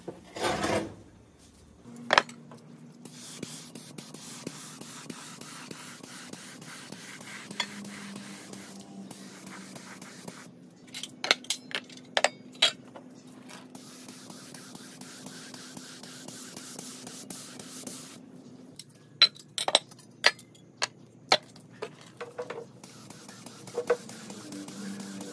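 Metal parts of a comb-binding machine clinking and scraping as they are handled and set down on a wooden board, with clusters of sharp clicks about 11 seconds in and again around 19 to 22 seconds, over a steady low hum. A brief loud rush of noise right at the start.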